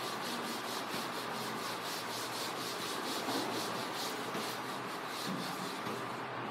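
Cloth duster rubbed back and forth across a chalkboard, wiping off chalk in quick, even strokes, about three a second.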